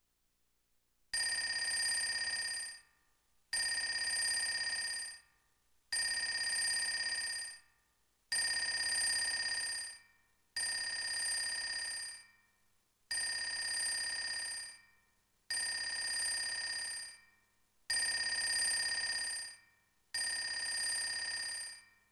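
Telephone-ring sound effect from a Platinum KS-5 karaoke player: a bell-like ring repeating nine times, each ring about a second and a half long, with short gaps between.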